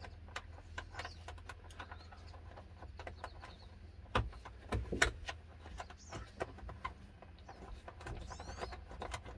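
Scattered light clicks and knocks of hands working around a Jeep Grand Cherokee's HVAC box and hand-starting its 10 mm retaining bolts, with a couple of sharper knocks about four and five seconds in. Small birds chirp now and then over a low steady hum.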